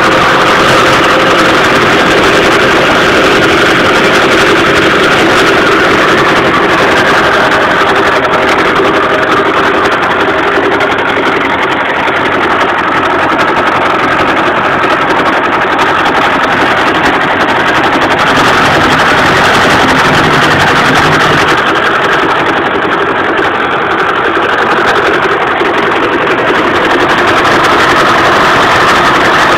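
Bridgeport vertical milling machine cutting 304 stainless steel with a 1-inch Iscar HM90 indexable cutter: a loud, steady machining drone with several held tones from the spindle and the cutter's teeth in the cut.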